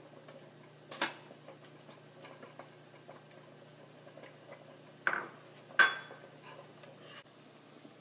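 Kitchen utensils being handled at a stovetop pot of tomato sauce: small scattered ticks, a knock about a second in, and two sharp clinks about five and six seconds in, the second ringing briefly like metal on metal.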